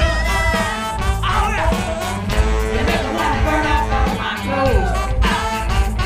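Live band playing a song, with voices singing over the instruments and a steady heavy bass and drum beat.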